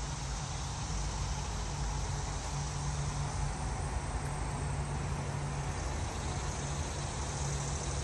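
Steady outdoor background noise: a constant low rumble and hum with a faint hiss above it, unchanging throughout, of the kind distant road traffic makes.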